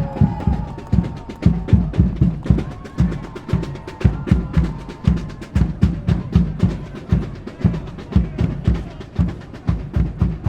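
Column of soldiers marching in step on pavement: heavy beats about twice a second, with many sharp clicks of boot heels over them.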